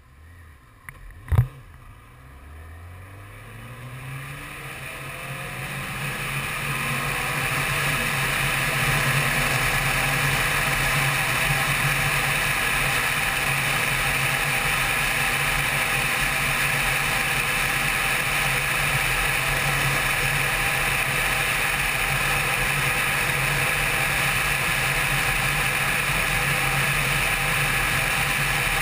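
Honda CBR600 inline-four engine pulling away after a sharp click about a second in, its pitch rising as it accelerates. It then runs steadily at cruising speed under a loud, even rush of wind, as heard from a helmet-mounted camera.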